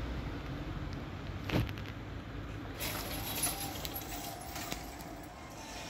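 Cars driving over a road–rail level crossing, their rumble fading, with a sharp thump from tyres crossing the rails about one and a half seconds in. About halfway through, a faint thin wavering tone with some light high rattling comes in.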